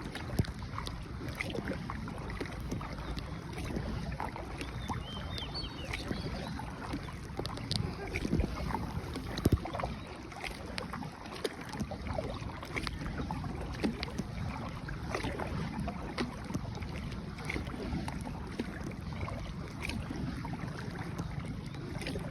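A small boat being paddled: paddle splashes and water sloshing, with scattered knocks and a sharper one about halfway through, over wind on the microphone.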